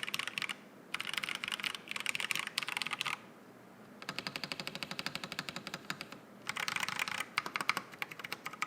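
Typing sound test on a GamaKay LK67 custom mechanical keyboard with light tactile Akko Lavender Purple switches and replica keycaps: fast runs of keystrokes in several bursts, with a pause of under a second near the middle.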